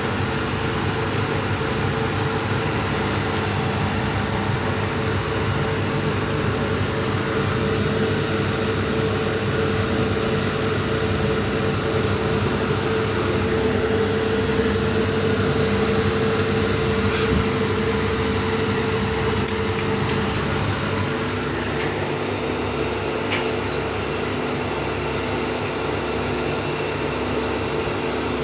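Bamboo satay-skewer slicing machine running steadily: a constant motor hum with a fast low rattle, its tone shifting slightly about 21 seconds in.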